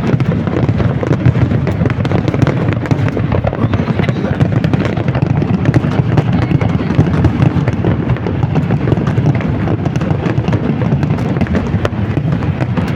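Fireworks display in a dense, continuous barrage: many bursts overlapping with no gaps, loud bangs mixed with a steady crackle.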